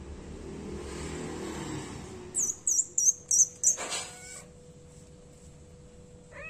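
About two seconds in, a quick run of five short, high-pitched falling chirps, about four a second, the loudest sound here. A kitten gives a short meow right after, and another short meow starts at the very end.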